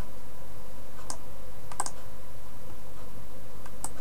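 A few sparse, sharp clicks from a computer mouse and keyboard being used, four in all, one of them a quick double click, over a steady background hiss with a faint hum.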